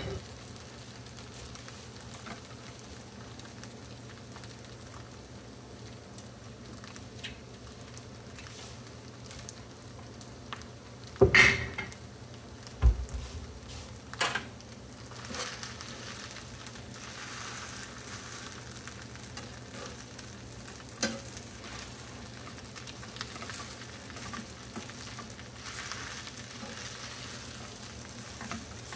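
Fried rice sizzling steadily in a frying pan. A few sharp knocks of a utensil against the pan come about a third of the way in; from about the middle, a metal spoon scrapes and stirs the rice.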